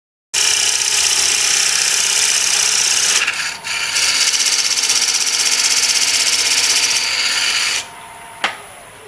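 Turning tool cutting a spinning black walnut blank on a wood lathe: a loud, steady scraping hiss with a short break about three and a half seconds in. The cutting stops near the end, leaving the lathe running more quietly, and a single click follows.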